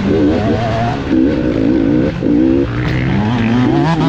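GasGas enduro motorcycle engine running under constant throttle changes over rough, muddy ground, its pitch wavering up and down, then climbing steadily as it accelerates about three seconds in.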